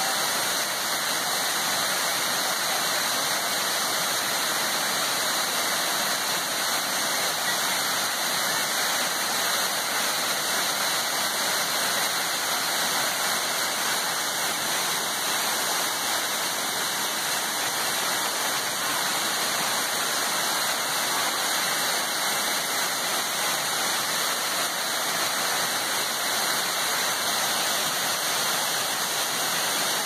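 A tall waterfall: a steady, even rush of water pouring down a rock face.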